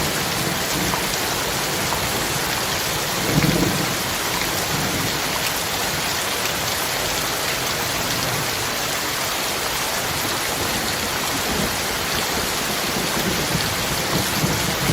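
Heavy rain falling as a steady, dense hiss, with a brief low rumble of thunder about three and a half seconds in and fainter low rumbles near the end.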